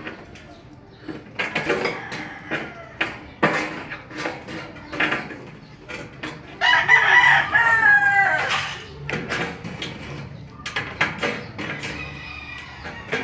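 Stanley aviation snips snipping red pre-painted sheet-metal gutter in short, sharp cuts. A rooster crows once, loudly, about seven seconds in, and chickens cluck near the end.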